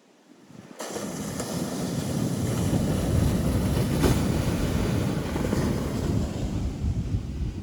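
Ocean surf breaking on a beach, a loud rush of water with a heavy low rumble that comes in abruptly about a second in and keeps going, with wind buffeting the microphone.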